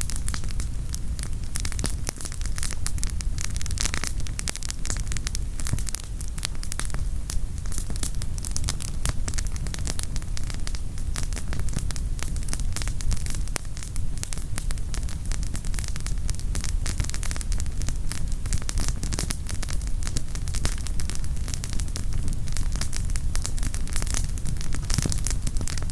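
Wood campfire burning, firewood crackling and popping in dense, irregular snaps over a steady low rumble.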